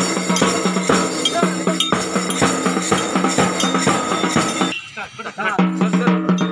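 Background music with a steady beat, briefly dropping away about five seconds in before picking up again.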